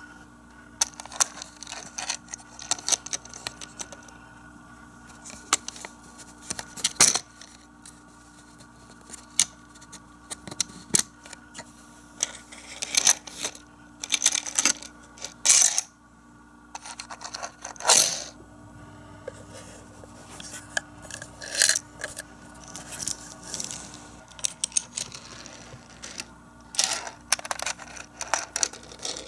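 Micro Machines toy cars and plastic playset pieces being handled: irregular light clicks, taps and rattles as the tiny cars roll down plastic ramp track and are pushed into the garage, with a few sharper knocks.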